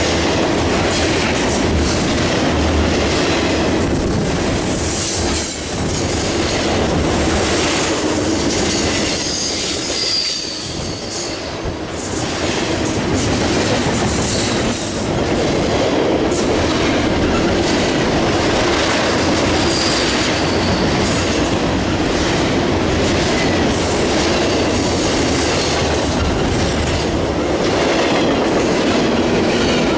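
Double-stack intermodal freight train's well cars rolling past close by: steady wheel rumble and clatter on the rails, with faint high wheel squeals coming and going.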